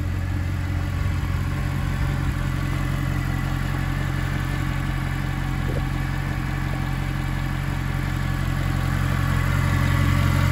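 2011 Mercedes-Benz SLS AMG's 6.2-litre naturally aspirated V8 idling steadily, heard close over the open engine bay, growing a little louder near the end.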